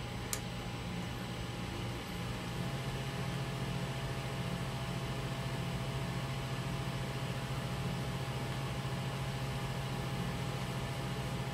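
Desktop computer running as it boots Windows: a steady low fan hum, with one short click just after the start. About two and a half seconds in, the hum grows a little stronger.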